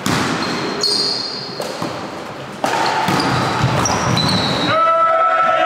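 Volleyball rally in an echoing sports hall: the ball is struck hard twice, about two and a half seconds apart, each hit ringing on in the hall, with short high squeaks of shoes on the court floor between them. Near the end a loud, steady, held pitched sound starts up.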